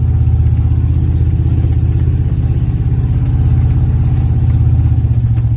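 1993 Ford F-150's engine running with a steady, low pulsing rumble as the truck drives through floodwater deep enough to reach past the bottom of the doors.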